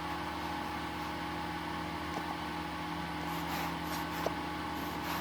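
Steady electrical hum of room machinery, holding several fixed tones, with two faint ticks about two and four seconds in.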